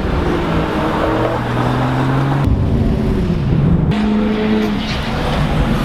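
Car engines running and revving as cars drive off, the engine note stepping up and down in pitch a few times.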